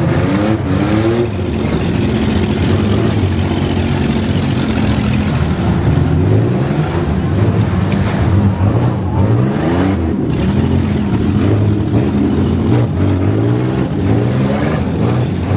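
Several demolition-derby minivan engines running and revving at once, their pitches rising and falling over one another, with a few sharp knocks.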